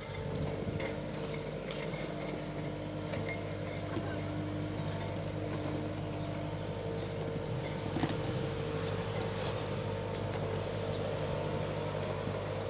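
Skid steer engine running steadily at an even speed, with a few faint clicks and a small knock about eight seconds in.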